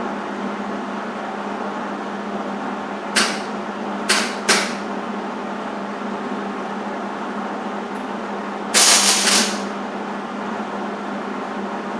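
Hobart 140 MIG welder striking short tack welds on thin 18-gauge sheet steel, solid wire under argon/CO2 shielding gas: a brief arc crackle about three seconds in, two more quick ones about a second later, then a longer burst of just under a second near the end. A steady hum runs underneath.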